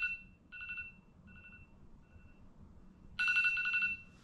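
A trilling, telephone-like ring on two pitches, followed by weaker repeats of the same tone fading out about every 0.8 s, then a second full ring about three seconds in.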